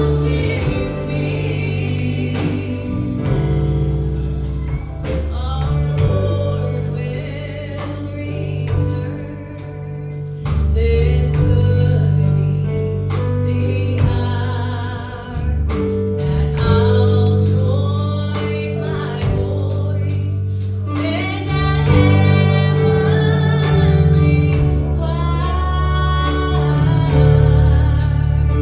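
Gospel song sung by several voices in harmony, with a female voice prominent, over instrumental backing with a sustained bass line.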